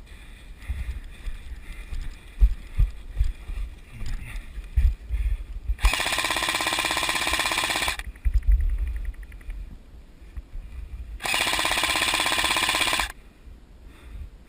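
Airsoft electric gun firing two long full-auto bursts of about two seconds each, the second beginning some three seconds after the first ends, with low thumps of handling and movement on the microphone before them.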